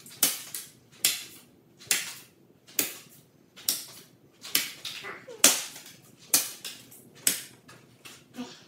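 Playing cards thrown in quick succession striking a foam target on a wall: nine sharp smacks a little under a second apart, each with a short echo.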